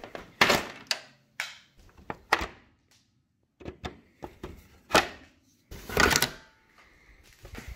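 Hard plastic clicking, knocking and scraping as a pickup truck's grille and header panel are worked loose from their clips by hand: a run of separate sharp knocks, with a longer scrape near the end.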